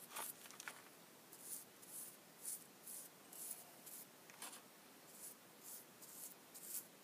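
Paintbrush bristles swishing back and forth on a wooden wine-barrel stave as a finish is brushed on, in short scratchy strokes about two a second.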